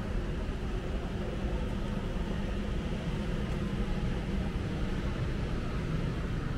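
Steady urban background noise: a constant low rumble with no distinct events.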